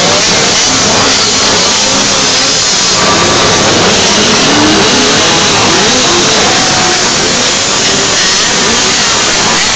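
Several minimoto pocket bikes' small two-stroke engines running together on the grid, blipped and revved over and over. It is a loud, dense buzz of many overlapping pitches rising and falling.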